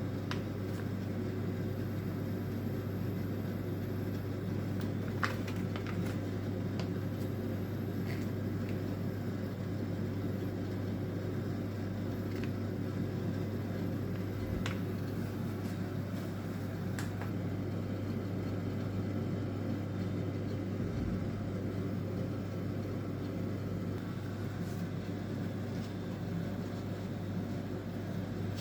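Steady low mechanical hum of a kitchen appliance running, with a few faint light clicks scattered through it.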